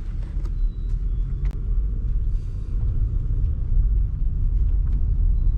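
Low, steady rumble of a vehicle's engine and tyres heard from inside the cab while driving slowly, with a few light clicks and knocks.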